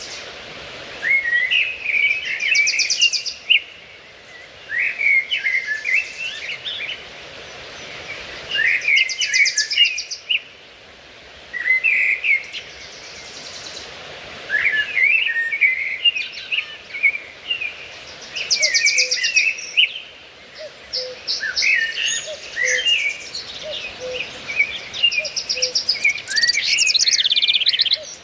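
Songbirds singing: short phrases of quick chirping notes with a fast buzzy trill, repeated every few seconds with brief pauses between.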